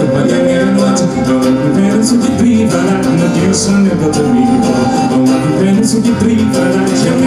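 Scottish folk band playing an old Scottish ballad live, the music running on steadily.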